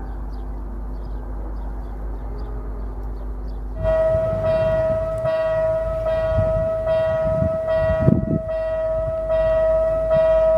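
Railway level crossing warning bell starting about four seconds in and ringing steadily about twice a second, over a low rumble.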